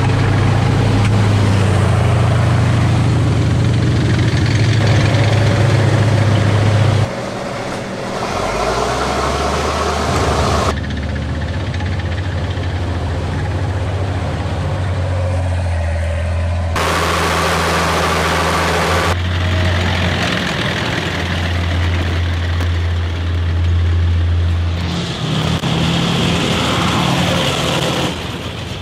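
Heavy WWII military vehicles driving through a river ford: a Sherman tank's engine running as its tracks churn through the water, then a wheeled armoured vehicle and a towed gun splashing across. The engine sound changes abruptly several times as one vehicle gives way to the next.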